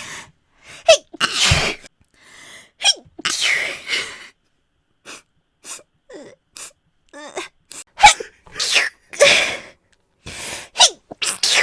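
A person sneezing again and again in quick succession: about a dozen short sneezes, some led in by sharp gasping in-breaths.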